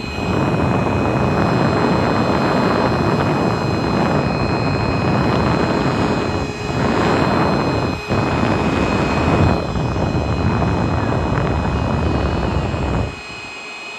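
Electric air-mattress pump running, a loud steady rush of air that starts abruptly, dips briefly twice in the middle, and cuts off sharply about a second before the end.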